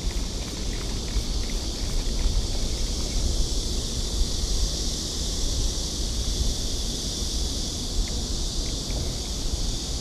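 Wind rumbling on the microphone of a body-mounted camera over a steady high outdoor hiss, with a few faint ticks.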